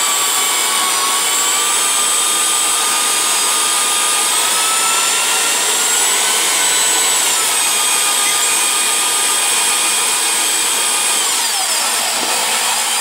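Electric drill running steadily, spinning a 16-gauge galvanized steel wire as it is drawn through a 1/16-inch hole in a wood block to straighten it. This is the last straightening pass after the wire has been heat treated and quenched. The motor's whine wavers slightly, then falls in pitch near the end.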